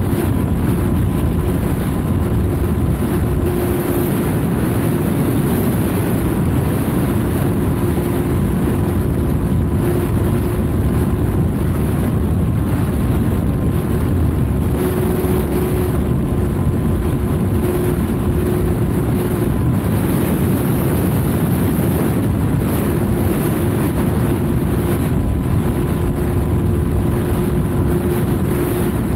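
Steady wind rush on an onboard microphone mixed with the drone of a small twin electric-motor RC plane's propellers in flight, the motor pitch shifting slightly a few times as the throttle changes.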